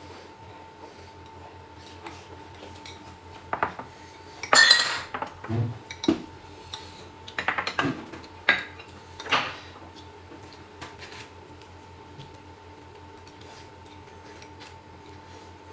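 Chopsticks and tableware clinking and clattering against a glass bowl, plates and a steel hot pot, in a cluster of sharp knocks from about three to ten seconds in, loudest around the middle. A faint steady hum runs underneath.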